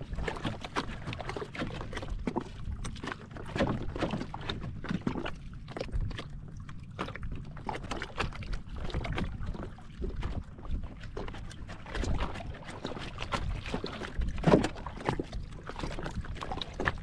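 Small waves lapping and slapping irregularly against the wooden hull of a small outrigger boat, over a steady low rumble.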